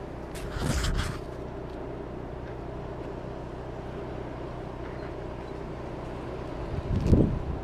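A steady low motor hum made of several even tones. A brief gritty scrape comes about half a second in, and a low buffeting thump comes near the end.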